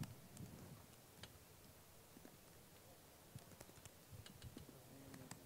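Faint clicks of laptop keys being typed: a single tap about a second in, then a quicker run of taps from about three and a half seconds on, otherwise near silence.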